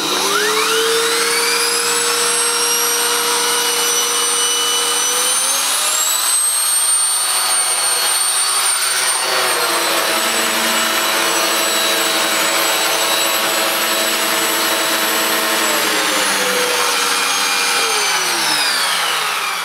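Hoover Eco G (Telios) bagged cylinder vacuum cleaner running with its air-powered turbo nozzle on the hose, a turbo head that is not the quietest. The motor whine spins up at switch-on from minimum power and steps up in pitch about six seconds in. It falls away and winds down near the end.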